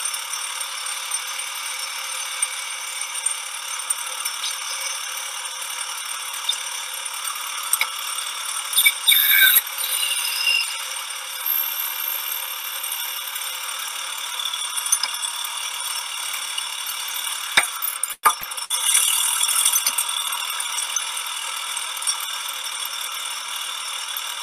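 Small capstan lathe running and cutting, a steady busy rattle heard thinly through a video call, with louder knocks about a third of the way in and again about three-quarters through.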